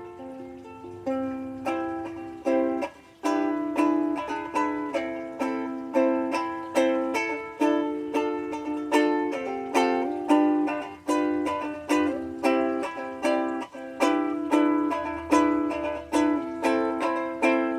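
Fender Moonlight soprano ukulele being played: a few softly picked notes, then strummed chords in a steady rhythm of about two to three strokes a second, with a brief break about three seconds in.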